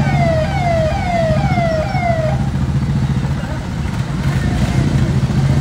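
Electronic vehicle siren sounding a short falling tone over and over, about two a second, stopping a little over two seconds in. Under it a steady low rumble of engines and crowd runs on.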